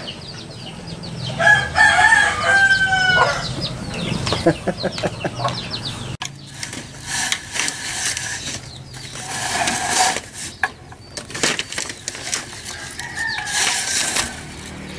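A rooster crows once, a held call about a second and a half in. Later come short chicken calls with rustling, scratching noise.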